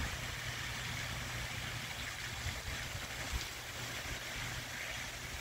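Steady outdoor background noise: a constant low hum under a faint hiss, with no distinct duck calls.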